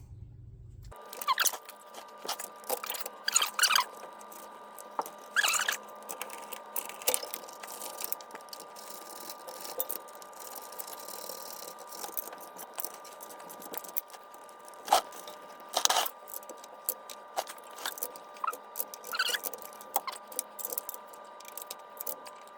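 Scattered short squeaks, scrapes and clicks of parts being handled and fitted during hand work on a car's shifter assembly, over a faint steady hum.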